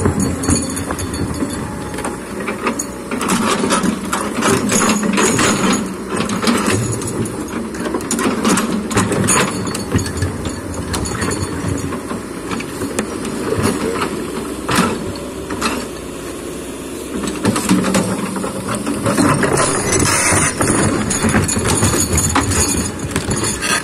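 Hydraulic excavator working in mud and stone: its diesel engine runs steadily under load, with frequent clanks and knocks from the machine and the rocks it moves.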